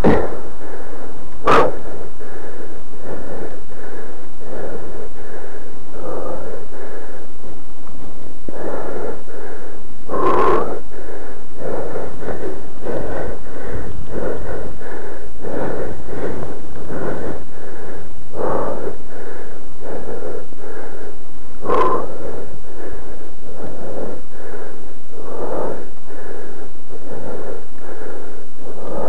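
A person breathing hard and rhythmically close to the microphone, slightly faster than one breath a second, from the exertion of exercising outdoors; three sharper, louder breaths stand out.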